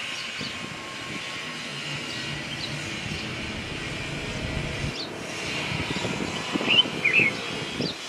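Outdoor ambience with a steady low hum that cuts off about five seconds in, under a few faint short bird chirps; two quick chirps a second before the end are the loudest sounds.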